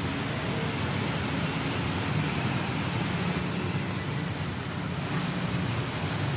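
Steady outdoor background noise: an even rush with a low hum underneath, with no distinct calls or knocks.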